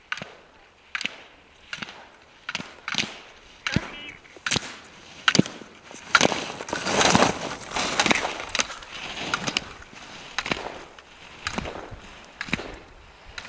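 A skier running a slalom course: a regular series of sharp clacks as the gate poles are struck, about one every 0.8 s, with the hiss of skis carving snow swelling louder in the middle.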